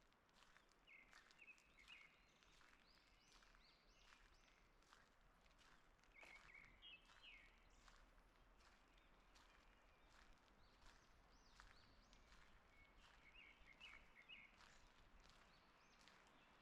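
Faint songbird singing a short phrase three times, about six seconds apart, over a continual run of soft footsteps on a forest path.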